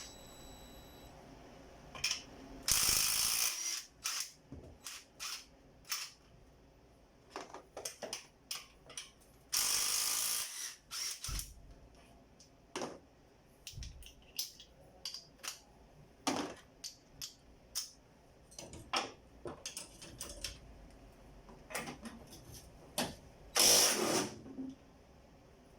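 Hand ratchet wrench with a deep socket clicking in short runs while loosening engine-mount bolts, among scattered metal tool clinks. There are three longer stretches of about a second of steady ratcheting, about three seconds in, near the middle and near the end.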